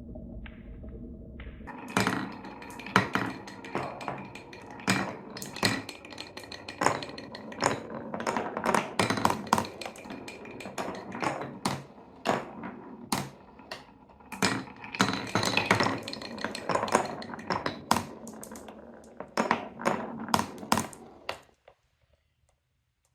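Marbles running through a wooden Cuboro block marble run: a low rolling rumble at first, then a long, irregular run of sharp clicks and knocks as the balls drop and clatter along the wooden track, stopping suddenly near the end.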